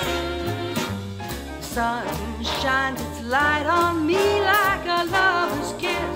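Song with a steady beat and a singer's voice, played through a pair of Kali LP-6 studio monitors and picked up by a microphone in the room.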